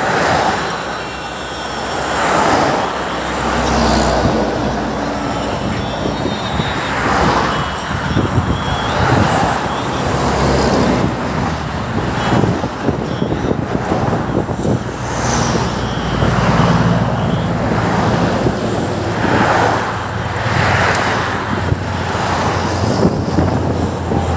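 Road traffic on a highway: cars and a truck passing one after another, each one swelling and fading as it goes by.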